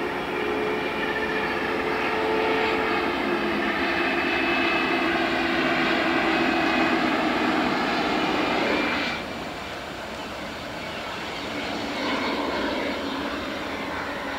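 Jet aircraft engines whining: several steady tones over a rushing noise. About nine seconds in, the sound drops abruptly to a quieter jet whine that carries on.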